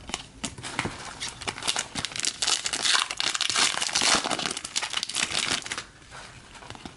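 Foil trading-card pack wrapper crinkling as it is torn open and handled, a dense run of crackles that eases off about six seconds in.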